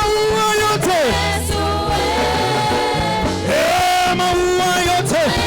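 Live gospel praise music: a band with bass and long held, gliding sung or played notes.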